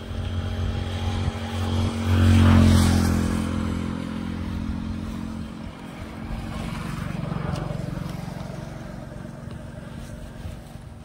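Motorcycle engine running while riding at speed, with wind buffeting the microphone. The sound swells to its loudest about two and a half seconds in, rises again briefly later, then eases off near the end.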